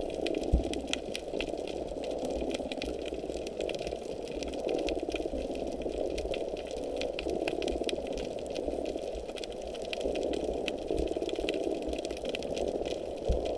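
A small motor running steadily with a fast, buzzing rattle that swells and eases every few seconds, with scattered faint clicks over it and one short thud about half a second in.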